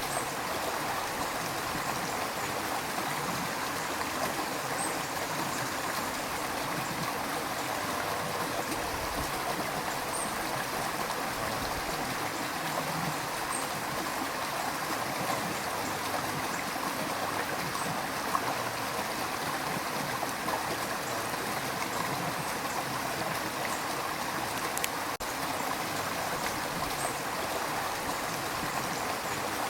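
River water rushing and gurgling over stones, a steady flow with occasional small splashes.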